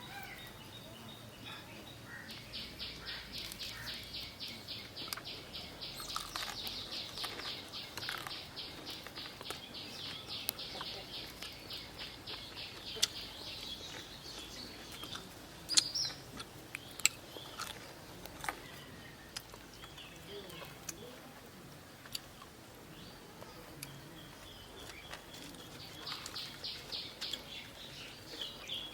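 A high, rapid trill of many short chirps a second, running for about ten seconds, fading, then starting again near the end, with a few sharp clicks in the quiet stretch between.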